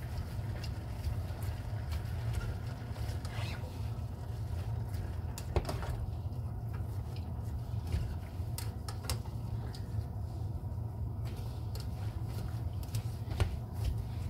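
A metal utensil stirring diced carrots, onions and browned meat in a stainless steel pot, with scattered light clicks and scrapes of metal against the pot over a steady low hum.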